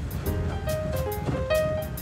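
Background music: a melody of short stepping notes over a bass line and a steady beat.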